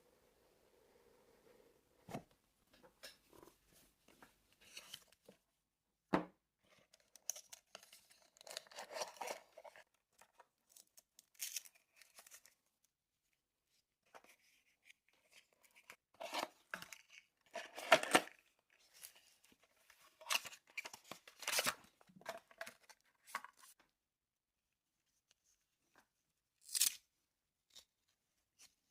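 A GPS watch's packaging being opened and handled by hand: intermittent tearing and rustling of paper and plastic with sharp clicks, in short bursts separated by pauses, loudest about eighteen seconds in.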